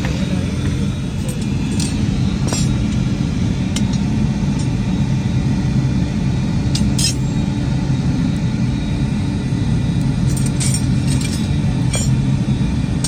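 Steady low rumble of a running machine, with scattered light metallic clinks at uneven times.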